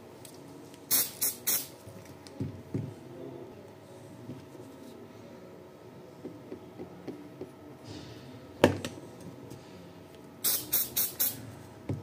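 Close handling of lithium-ion cells and a plastic glue bottle on a stone tabletop. Three quick sharp clicks come about a second in, a single louder click near nine seconds, and a run of four near the end, with faint small knocks and rustles between.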